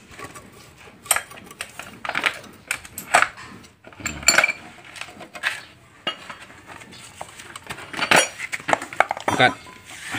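Steel socket extension bar and wrench clinking and knocking against the engine as bolts are worked, a string of sharp, irregular metal clinks about a second apart.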